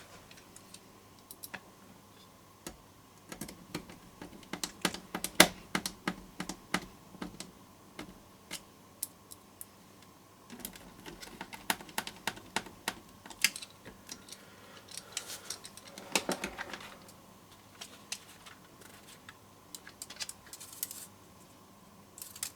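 Irregular small clicks, taps and rattles of a plastic computer case and its loose screws being handled and taken apart, with a short scraping rustle near the end.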